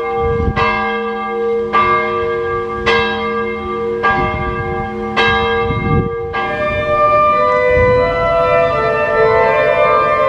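Church bells ringing a call to Mass, about five strikes roughly a second apart, each left ringing. About six seconds in they give way abruptly to organ music.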